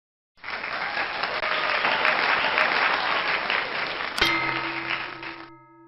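Crowd applause that starts suddenly and stops after about five seconds; about four seconds in, a click and a sustained ringing musical tone join in and ring on as the applause ends.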